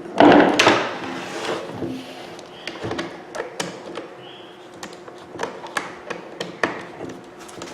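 Tools and small metal parts handled on a workbench: a loud clatter about a second long at the start, then scattered light clicks and taps as screws are worked on.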